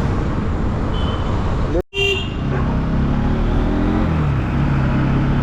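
Street traffic with a vehicle engine running. Short horn toots come about one second and two seconds in, with a brief dropout in the sound just before the second. The engine's pitch dips and then settles into a steady low hum in the second half.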